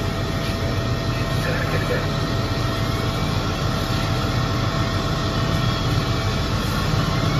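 Fire apparatus engines running steadily at a fire scene: a continuous low mechanical drone with faint steady higher tones over it.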